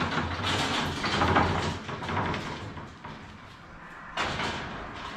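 A trailer being rolled into place across the floor, rattling and rumbling loudly for a couple of seconds, with a second, shorter rattle about four seconds in.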